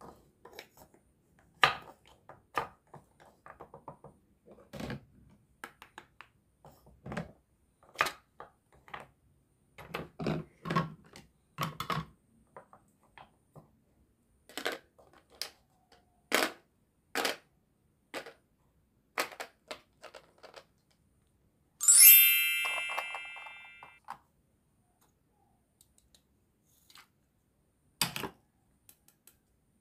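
Hard toy food pieces and a toy knife clacking and knocking against a wooden cutting board, in scattered single taps and knocks. About two thirds of the way through, one loud ringing ding that fades away over about two seconds.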